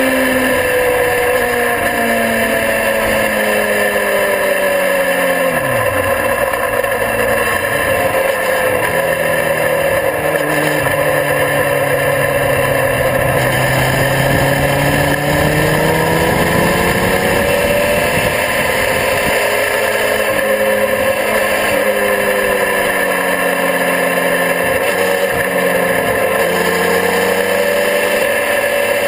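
Sport motorcycle engine at speed on a racetrack lap; its note falls while slowing into corners and rises again under acceleration, several times over, with a steady rush of wind over the microphone.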